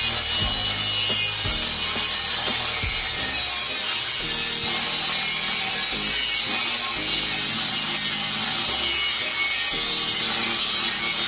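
Angle grinder with a cut-off disc cutting through a steel plate: a steady, high-pitched grinding rasp.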